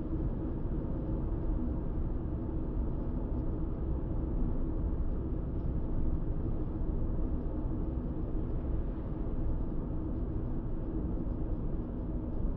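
Steady engine and tyre noise of a car cruising along a country road, heard from inside the car: an even low rumble with a faint hum, no change in pace.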